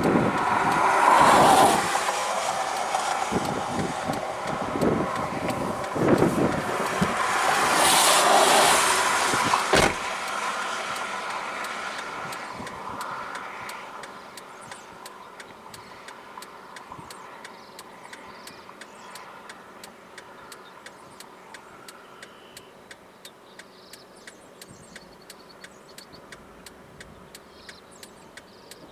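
Strong wind gusting and buffeting against a car, with two loud surges in the first ten seconds, then dying away. Once the wind drops, a steady light ticking goes on at about one or two ticks a second.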